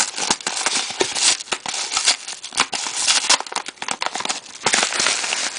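Yellow padded paper mailer envelope crinkling and crackling in the hands as it is opened, a dense run of rustling with many small crackles.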